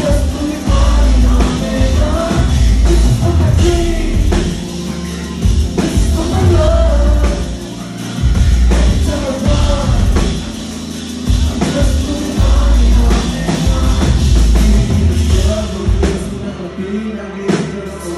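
A male singer singing live into a microphone over loud amplified music with heavy bass.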